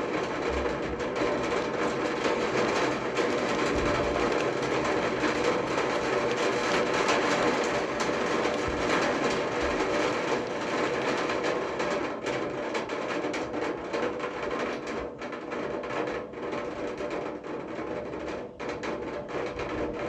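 Heavy rain drumming in a dense, steady patter, easing slightly in the last third.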